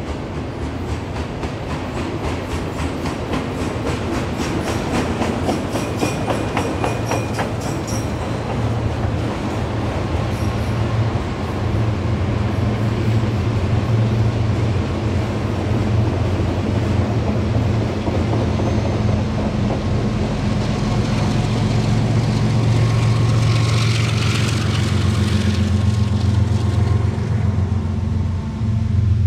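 Freight cars rolling past with a dense run of wheel clicks over the rail, then a GE ES44DC diesel locomotive shoving as the rear distributed-power unit. From about a third of the way in, its 12-cylinder GEVO engine runs under heavy load on an upgrade as a steady low drone that grows louder.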